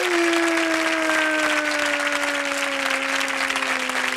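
Studio audience applauding steadily. Over the applause one long held note slides slowly down in pitch.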